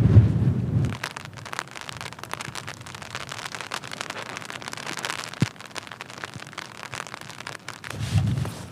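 Rain falling on tent fabric: a dense run of small, irregular drop ticks. For the first second and again near the end, a low rumble of wind buffeting the microphone covers it.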